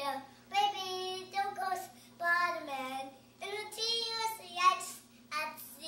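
A three-year-old boy singing in phrases of held, wavering notes with short breaths between them, over a faint steady electrical hum.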